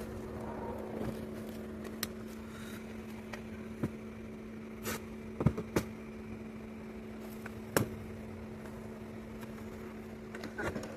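A steady mechanical hum with a few sharp clicks and knocks scattered through it, the loudest about five and eight seconds in.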